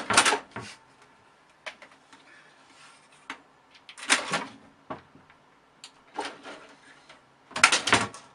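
A cat scrabbling its claws against a computer tower case and bumping into it as it leaps up the side. The scratching and knocks come in three bursts, at the start, about halfway and near the end, with light scattered clicks between.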